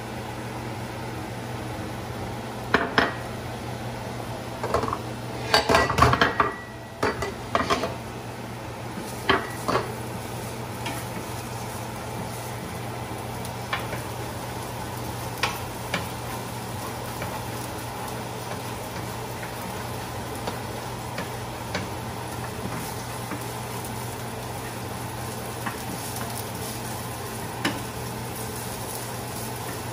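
Scattered clinks and clatters of hard objects being handled, busiest between about 5 and 8 seconds in and sparser later, over a steady low hum.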